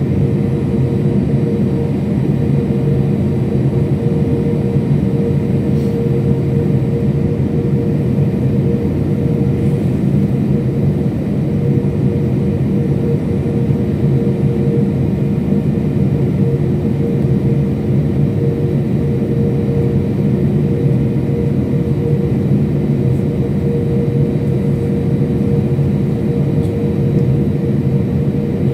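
Passenger-jet cabin noise: the steady drone of the engines and rushing air heard from inside the airliner, with a constant low hum.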